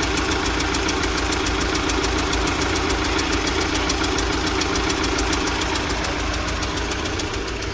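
UMZ-4216 (Evotech 2.7) engine idling with a fast, even knocking, about nine or ten strikes a second. The knock comes from cylinder 1, where an intake valve seat has come loose in the cylinder head.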